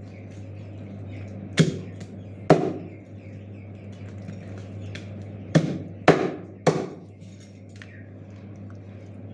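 Meat cleaver chopping through raw chicken onto a plastic cutting board. There are five sharp chops: two about a second apart, then three in quick succession about half a second apart, over a steady low hum.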